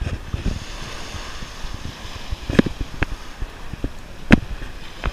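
Wind buffeting the camera microphone over the wash of small surf at the water's edge, with a couple of sharp knocks, about two and a half and four and a half seconds in.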